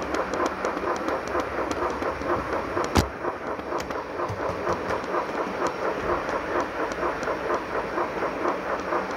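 Model railway steam locomotive with a sound decoder imitating a DB class 44, running light: soft, evenly spaced steam chuffs in a quick rhythm over the rolling noise of wheels on the rails. There is a single sharp click about three seconds in.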